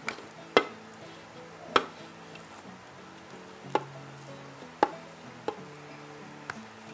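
A kitchen utensil knocks sharply against the plastic bowl of a food chopper seven times, at irregular intervals, as chunks of fermented cassava are tipped in, over soft background music.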